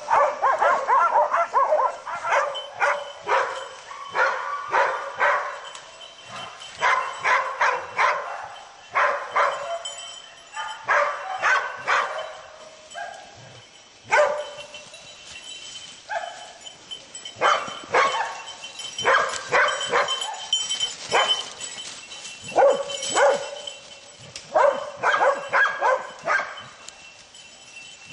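Hunting dogs barking and yelping in quick bunches with short pauses as they bay a wild boar.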